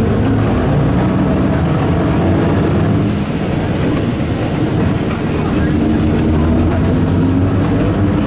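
Ikarus 260 city bus heard from inside the cabin as it drives: steady diesel engine rumble with body and road rattle, the engine note climbing near the end as it picks up speed.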